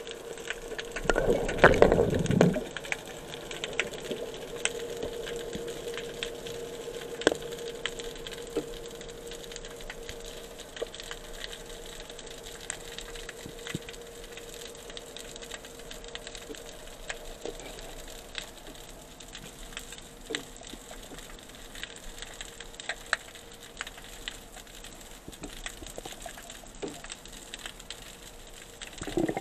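Underwater ambience: a steady crackle of scattered sharp clicks over a steady hum, with a loud brief rush of water about two seconds in and another short rush near the end.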